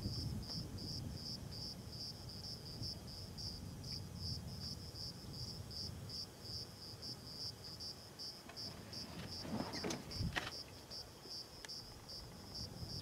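An insect chirping steadily in grassland: a high pulse repeated about three and a half times a second, over a low rumble that fades partway through. A couple of brief knocks come about ten seconds in.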